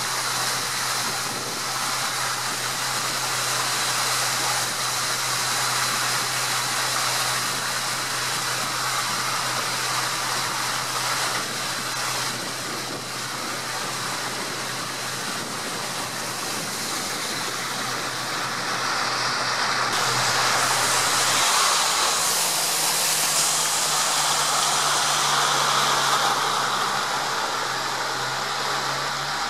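Motorboat engine running steadily with a low, even hum under a constant rush of water and wind noise; the hum steps up slightly in pitch about 21 seconds in.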